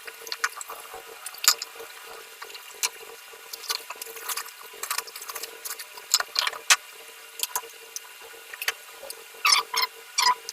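Irregular crinkling and clicking of packaging being handled as a PC power supply is unboxed, with a few louder bursts of crackle near the end.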